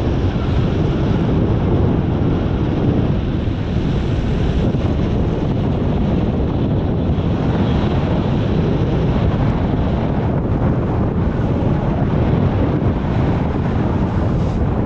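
Wind from the paraglider's flight rushing over the camera microphone: a steady, loud, rumbling wind noise.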